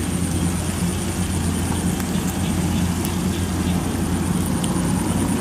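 Rice combine harvester's diesel engine running steadily: an even, low hum with no change in pitch.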